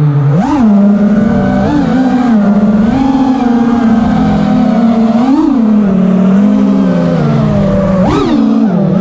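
FPV racing quadcopter's brushless motors whining steadily, the pitch swooping up and back down several times with the throttle.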